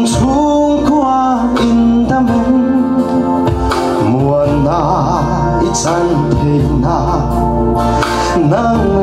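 A man singing a Mizo gospel song solo into a handheld microphone, his voice wavering with vibrato on held notes, over steady sustained backing music.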